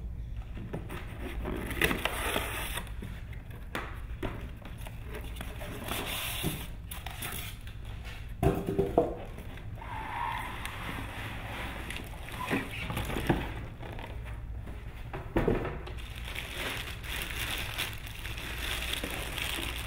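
Cardboard box and clear plastic bag being handled as a boxed RC truck is unpacked: irregular rustling and crinkling with scattered knocks and thumps, the loudest around the middle, over a steady low hum.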